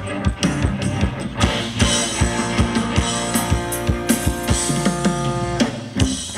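Live band playing Thai ramwong dance music: a steady drum-kit beat with bass, guitar and held keyboard notes. The beat drops out briefly near the end, then comes back in.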